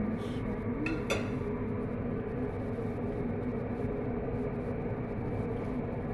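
A steady hum with a few held tones runs under chicken simmering in sauce in a frying pan. About a second in come a couple of sharp clinks of cookware, then a wooden spatula stirs the pan.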